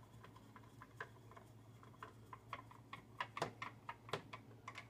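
Faint small clicks and ticks, roughly three a second and louder in the second half, from a screwdriver with a Torx T20 bit working a screw out of the charger's plastic housing.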